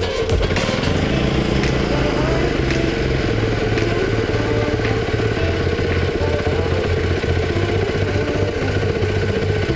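The engine of a Chikusui Canycom KANEMARU crawler carrier running steadily, a formerly dead engine brought back to life after servicing, with a brief rise in speed about a second in.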